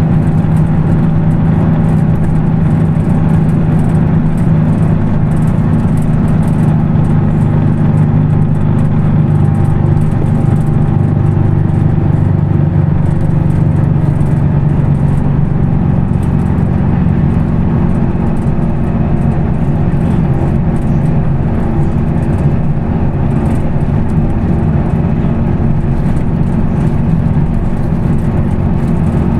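Weichai WP6NG210E50 natural-gas engine of a Higer KLQ6935GC5 city bus running, a steady drone whose pitch shifts a little about halfway through.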